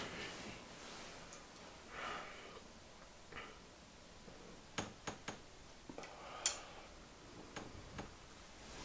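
Faint rustling of a duvet and soft breathing as a person shifts in bed, with a few small sharp clicks.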